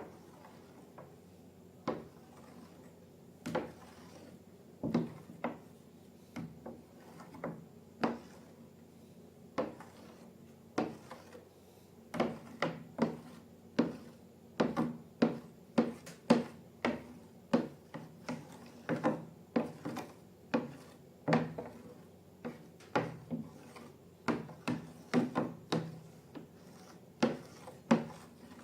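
Glossy slime being worked by hand, giving a run of irregular sticky clicks and pops that come faster from about halfway through.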